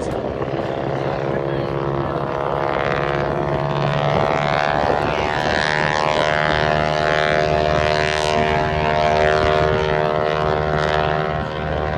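Aircraft engine droning with a steady pitched hum that grows louder from about four seconds in and holds through the middle, as the aircraft passes.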